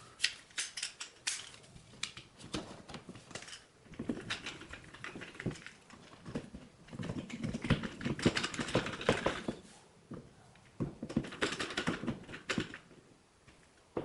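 Outlet cover plate being handled and fitted over the receptacle: a run of small clicks and scraping in several bursts.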